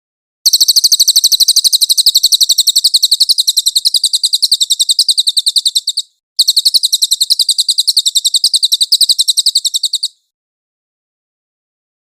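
Cililin songbird singing a long, loud, rapid trill of very high, evenly repeated chirps, about eight a second, in two runs broken by a brief pause around the middle.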